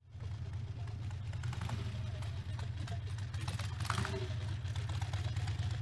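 Harley-Davidson V-twin motorcycle engine idling steadily, a low, even pulsing beat with no revving.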